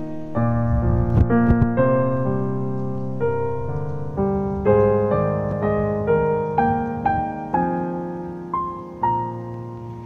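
Background piano music: a melody of separate struck notes over sustained lower notes, each note fading after it is struck.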